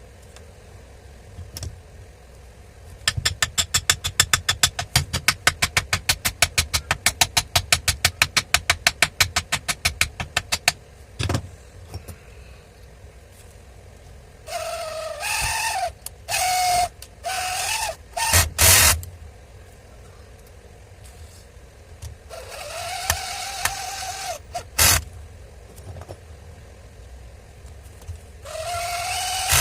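Sharp, evenly spaced clicking, about four to five a second for several seconds. Then several short runs of an electric power-tool motor whirring up to speed and stopping abruptly.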